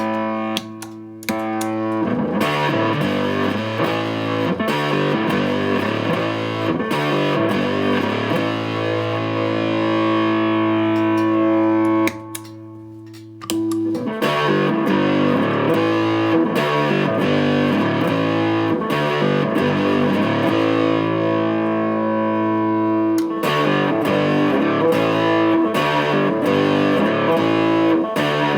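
Electric guitar played through an Astrotone-type silicon fuzz pedal, giving distorted chords and riffs with held notes. The sound drops out briefly about a second in and again about halfway through.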